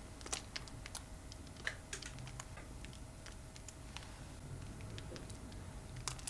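Chopped coriander sprinkled by hand over baked cheese-topped potato rolls on a parchment-lined tray. Light, irregular ticks sound as the bits land on the paper and rolls.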